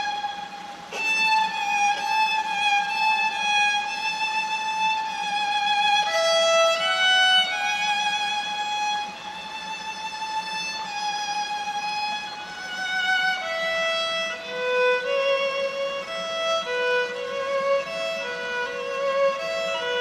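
Solo violin played inside a concrete culvert: a slow melody of long held notes with vibrato, turning to shorter, quicker notes lower in pitch in the second half.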